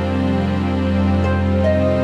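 Background music: slow, sustained new-age instrumental with a steady low drone and held chords, a higher note coming in near the end.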